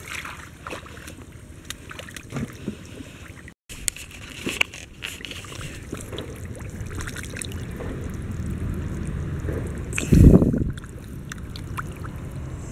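Feet wading through shallow muddy water, sloshing with scattered small splashes. There is a loud low thump about ten seconds in.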